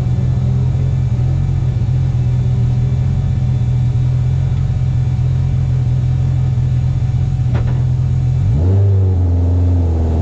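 Race car engine heard on board, running at a steady pitch. A sharp click comes about seven and a half seconds in. Near the end the engine note dips and then starts climbing again.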